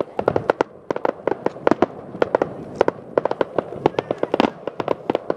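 A fireworks barrage: aerial shells bursting in rapid, irregular bangs, several a second and overlapping.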